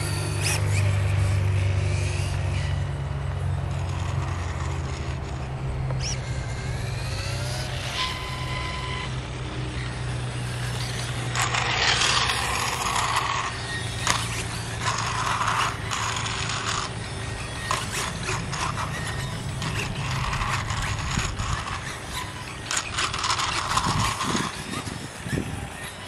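Losi Promoto-MX RC dirt bike's brushless electric motor and chain drive whirring on asphalt, the whine rising and falling as it speeds up and slows through turns, with mechanical rattles. A steady low hum underneath fades out past the middle.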